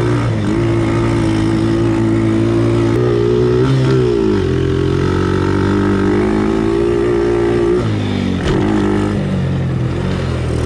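Off-road vehicle engine running under throttle at steady revs. The revs dip briefly and recover three times: about half a second in, around four seconds in and around eight seconds in.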